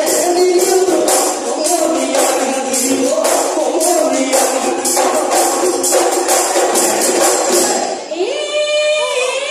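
Live Assamese Bihu music: dhol drums and cymbals beating a fast, even rhythm about three strokes a second under group singing. About eight seconds in the percussion stops and a single high line slides up and holds a long note.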